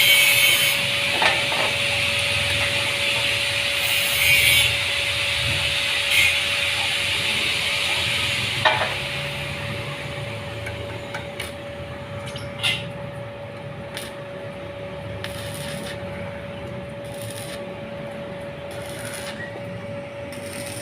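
Workshop tool work on a bus exhaust: a steady whine under a sawing, hissing noise that eases off about halfway, with scattered sharp metal knocks.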